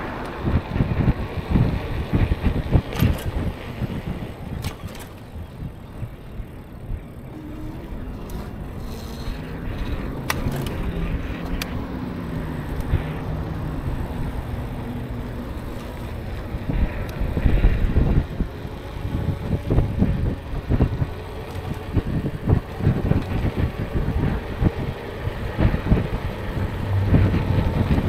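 Wind buffeting the microphone of a moving e-bike, an uneven low rumble that swells and drops, with road traffic noise. A faint hum rises and falls in pitch in the middle.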